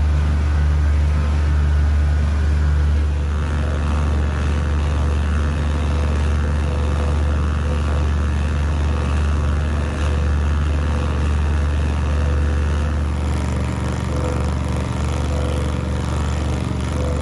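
Fishing boat's engine running steadily under way: a deep, even drone with a steady hiss over it.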